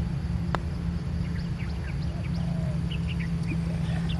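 A single sharp click of a putter striking a golf ball about half a second in, over birds chirping and calling and a steady low hum.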